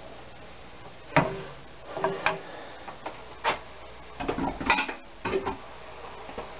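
Irregular sharp knocks and clinks of kitchen utensils against cookware, about a dozen in all. The loudest comes about a second in, and a quick cluster of clatter follows in the second half.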